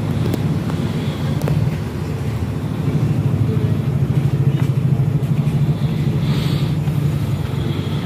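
Haier 14 kg inverter top-load washing machine spinning its drum: a steady low hum and rumble with a few faint clicks. The machine is running normally, its FC error cured by a replaced PC board.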